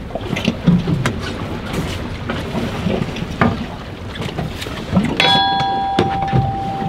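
Wind and choppy water slapping a small boat's hull, with scattered short knocks and splashes. About five seconds in, a steady high tone starts abruptly and holds.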